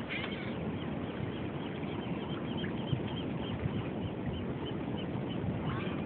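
Steady rush of the river mouth's flowing water, with wind on the microphone. Over it, birds give a long run of short, high calls, about four a second, through the middle.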